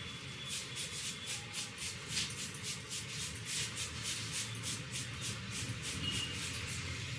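Hands rubbing and kneading the hair and scalp in a head massage, a quick string of rustling strokes about three a second.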